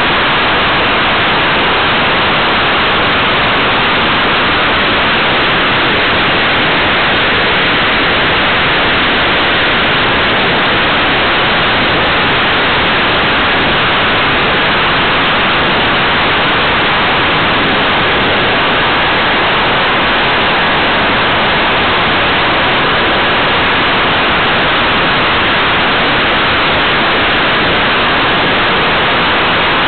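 Steady, loud rushing of airflow over a flying model aircraft's onboard camera microphone: an even hiss with no engine tone in it.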